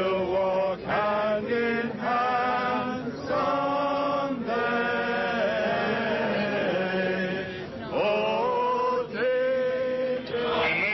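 A group of people singing a protest song together in long, held notes, phrase after phrase.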